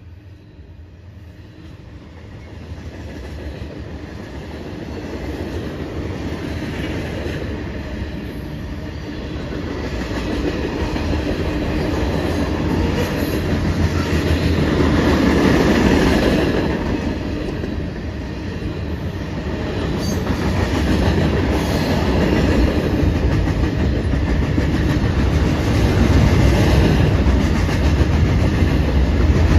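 Freight train cars (covered hoppers, tank cars and boxcars) rolling past close by: a continuous rumble with the clickety-clack of steel wheels over the rail joints. It grows louder over the first half, peaks about halfway through, eases briefly, then swells again near the end.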